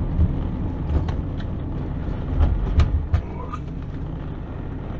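A car being driven on the road: a steady low rumble, with several short knocks and rattles in the first three seconds or so.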